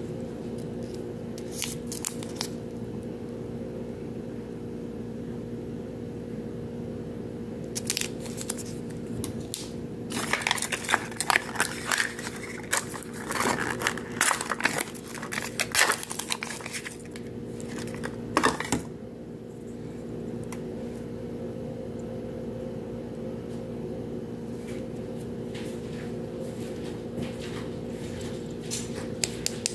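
Small plastic wrappers crinkling and tearing as miniature toys are unwrapped by hand from a Mini Brands capsule, in short bursts of rustling and clicks that are busiest in the middle, with one sharp click a few seconds later. A steady low hum runs underneath.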